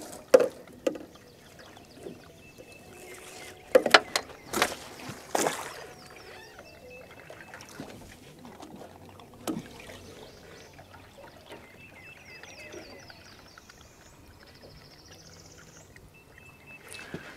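Sharp knocks and clatter of bait being cut and handled at a bait box in a small fishing boat, over faint lapping water. A bird chirps twice near the end.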